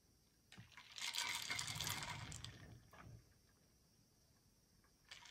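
Drink sucked up through a straw from a glass jar of iced drink: a slurping draw lasting about two seconds, then fading out.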